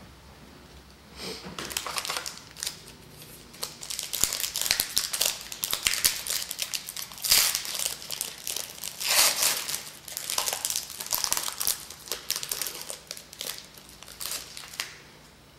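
Trading card pack wrapper crinkling and tearing as a pack is opened and handled, in irregular crackling bursts that stop just before the end.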